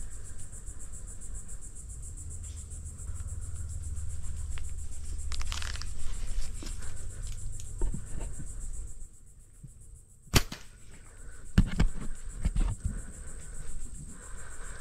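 A compound bow is shot about ten seconds in: one sharp snap of the released string, the loudest sound here, after a hushed moment at full draw. Before it there is rustling in dry leaves and brush. After it come a couple of thumps and more rustling in the undergrowth.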